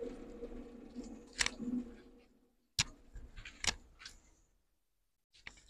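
Low steady hum of a two-head PVC profile cutting saw fading out over the first two seconds, then a few separate sharp clicks and knocks.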